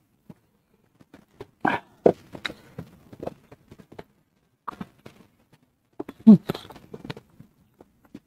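Close-up eating sounds: fried instant noodles slurped in off a spoon and fork and chewed, with short clinks and scrapes of the cutlery on a metal plate. The sounds come irregularly, the loudest about six seconds in.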